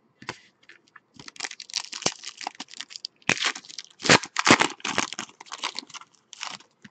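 A 2013-14 Panini Elite basketball card pack being torn open by hand: its wrapper rips and crinkles in a run of irregular crackles starting about a second in, loudest in the middle.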